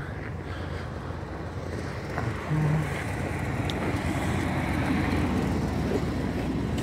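Pickup truck engine idling with a steady low hum that grows a little louder as footsteps crunch through the snow toward it.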